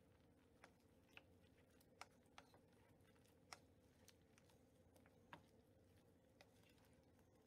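Very faint, scattered pops of thick curry sauce bubbling as it reduces over high heat, about one a second at irregular intervals, over a low steady hum.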